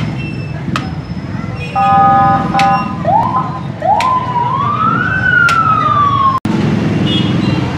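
Street noise with a vehicle horn honking twice. Then a siren winds up in two short rising wails and a longer one that climbs and slowly sinks, breaking off suddenly about six seconds in.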